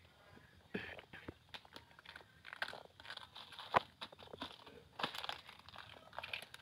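A plastic snack bag crinkling in a hand as dry food pellets are shaken out onto concrete, mixed with a cat crunching the pellets. Irregular sharp crackles and clicks begin about a second in.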